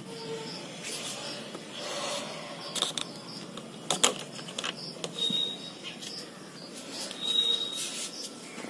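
Hands working a scooter's rear-view mirror stem and the fog-light bracket clamped beneath it: scattered sharp clicks and rubbing as the mirror is turned and adjusted on its mount.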